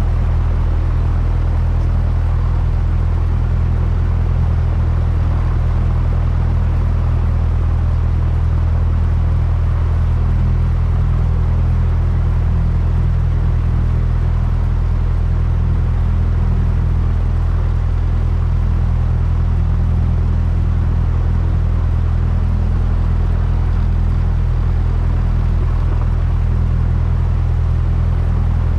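A small plane's piston engine and propeller droning steadily, with no change in pitch or level.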